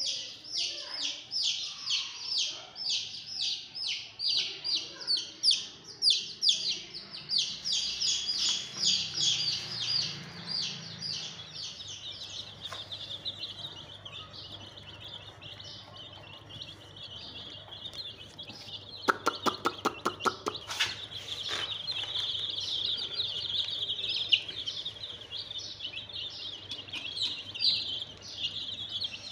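Domestic chicken chicks peeping: loud, high peeps repeated a few times a second at first, then a dense, continuous chorus of many chicks peeping over one another. About nineteen seconds in there is a quick run of about ten sharp clicks.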